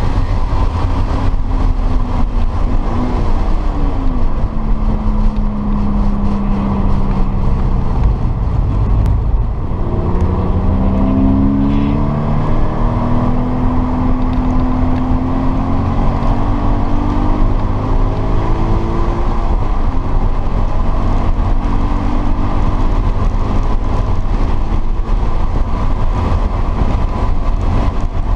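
Subaru BRZ's flat-four engine heard from inside the cabin at track speed, its pitch falling and rising several times with throttle and gear changes, under a heavy, steady rumble of road and wind noise.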